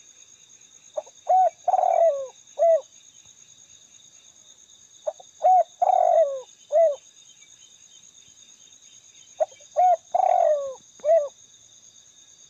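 Spotted dove (tekukur) call: three near-identical cooing phrases about four seconds apart, each ending in a longer falling coo. It is played through a mini Bluetooth speaker as a lure. A faint steady high-pitched hum runs underneath.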